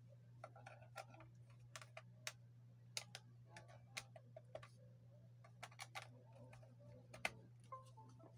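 Irregular small clicks and taps of a wired mouse and its USB plug being handled and pushed into a laptop's USB port, over a low steady hum.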